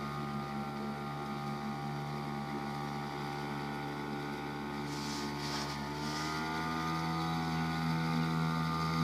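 Outboard motor of a small inflatable PVC boat running steadily under way, a steady drone whose pitch sags briefly a little past halfway and then recovers. It grows slightly louder near the end as the boat comes nearer.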